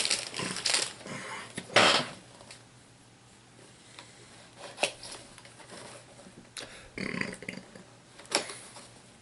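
Collectible miniatures and cards being unpacked by hand: irregular rustles, crinkles and light plastic clicks, the loudest about two seconds in.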